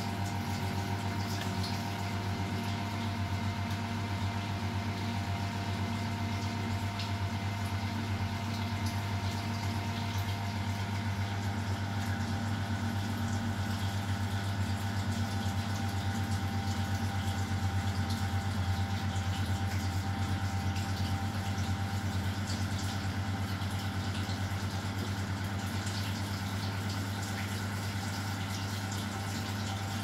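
A 1988 Miele WS 5406 washing machine running mid-wash: a steady electrical hum with water sloshing in the drum.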